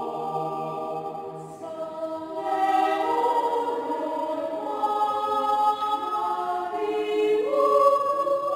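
Mixed choir of women's and men's voices singing in harmony, holding long chords that change every few seconds and growing louder about two and a half seconds in.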